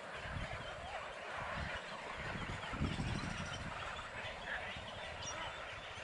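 A mangrove colony of egrets and other waterbirds calling: many short, overlapping guttural croaks and chatter. An uneven low rumble runs underneath and is loudest about three seconds in.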